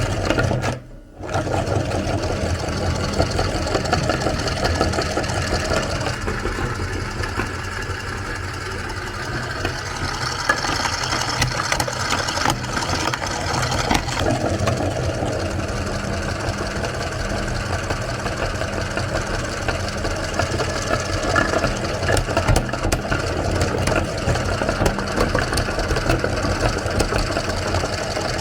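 Electric meat grinder running steadily as it grinds soap, its motor drone continuous apart from a brief drop about a second in.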